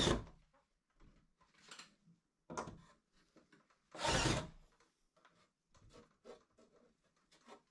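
Cordless drill driving screws into wooden door-frame trim in a few short bursts, the strongest right at the start and about four seconds in, with quieter knocks of wood being handled between them.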